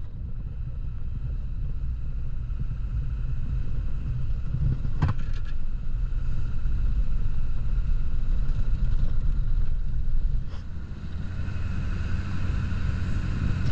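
A car or truck driving on a dirt road, heard from inside the cab as a steady low rumble of engine and tyres, with a short knock about five seconds in.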